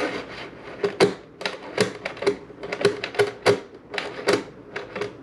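Irregular sharp clicks and light knocks, about fifteen in five seconds, from a stuffing tube and flex cable being pushed in and tapping against the RC boat hull as they are fitted and centred.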